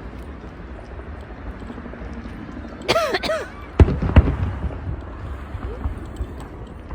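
Aerial fireworks bursting: a short crackling burst about three seconds in, then two sharp bangs less than half a second apart, the loudest sounds, over a low rumble.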